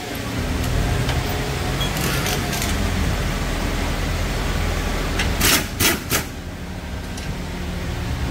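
Pneumatic impact wrench running a rear suspension bolt home in three short bursts a little past halfway, over a steady low hum.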